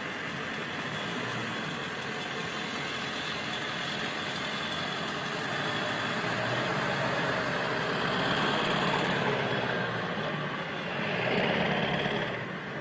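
A motor vehicle engine running steadily, growing louder in the middle and again shortly before the end.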